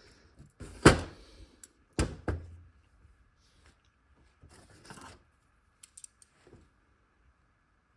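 Small carburettor parts and a measuring tool handled on a workbench: two sharp knocks about a second apart, a softer scuffing a few seconds in, then a few light clicks.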